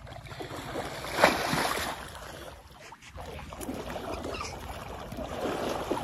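Splashing in a shallow, muddy irrigation channel as a boy plunges in and paddles through the water, with the loudest splash about a second in.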